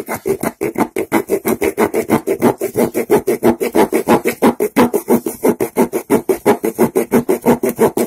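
Small saw blade of a Sanrenmu multi-function knife sawing a fir board in quick, short strokes: a rhythmic rasp of about five strokes a second, steady throughout.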